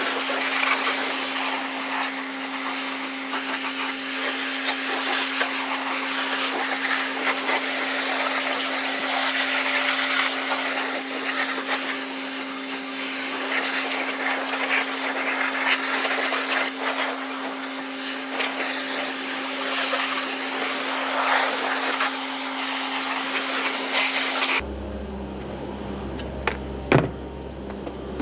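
High-pressure washer jet spraying water against a JCB Fastrac tractor's wheels and bodywork: a loud, steady hiss with a constant hum underneath. It cuts off suddenly about 25 seconds in, leaving a quieter low hum and a single knock.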